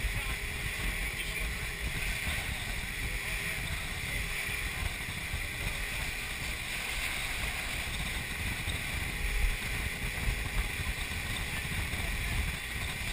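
Steady rush of wind and water on an open motorboat under way, with wind buffeting the microphone. A couple of brief louder knocks come about two thirds of the way through.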